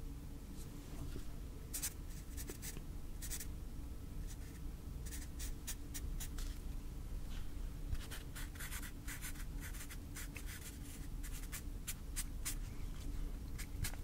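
Pen writing on paper on a clipboard: short scratchy strokes in irregular clusters, busiest in the second half.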